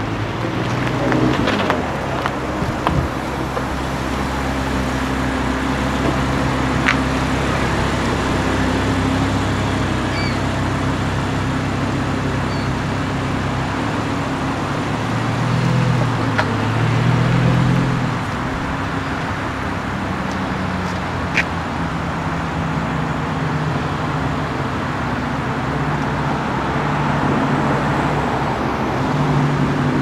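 Audi R8's engine running at low speed in traffic, with a brief rise and fall in revs about halfway through.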